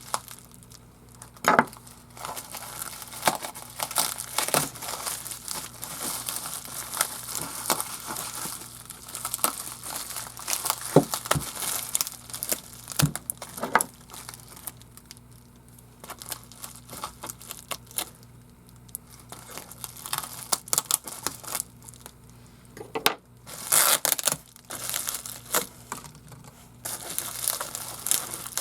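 Packaging being handled, crinkled and torn open by hand: irregular crackling and rustling, with a louder flurry of tearing about 23 seconds in.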